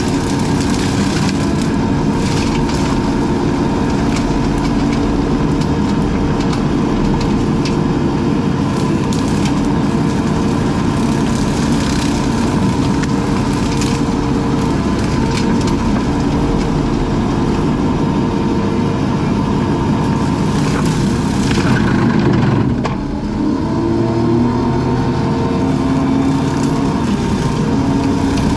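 Skid steer engine running hard under load while its front-mounted CID brush cutter chews through brush and saplings, with repeated woody cracking and splintering. About 23 seconds in, the sound drops briefly and then picks up again.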